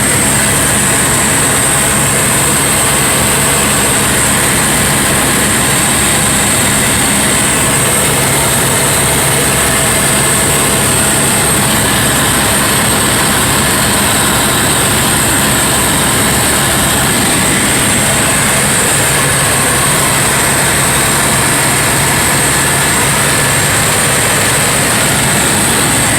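Helicopter in flight, its engine and rotor making a loud, steady drone with a constant high whine.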